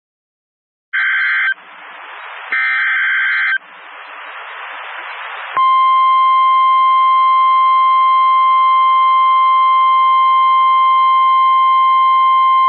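Emergency Alert System weather-radio alert: about a second in, two short SAME digital header bursts with static hiss between them, then from about five and a half seconds the loud, steady, single-pitched 1050 Hz warning alarm tone.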